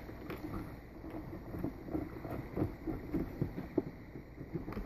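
Faint handling sounds: light taps and scrapes of fingers and a small driver on a carbon-fibre mini quadcopter frame, with a sharper tick near the end.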